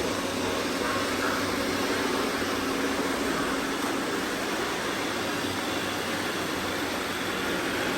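Robot vacuum cleaners running: a steady mechanical hum of motors and brushes.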